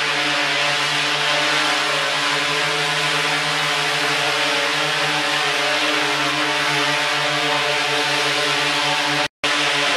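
DJI Inspire quadcopter hovering, its four motors and propellers giving a steady buzz made of several held tones over a hiss. The sound drops out for a split second near the end.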